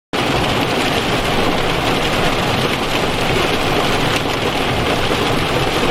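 Rain falling, a loud steady hiss that cuts in abruptly right at the start.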